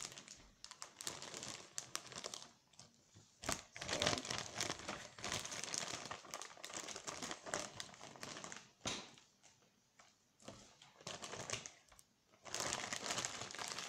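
Clear plastic bag crinkling as it is handled and opened to get slime out, in bouts with short quiet gaps.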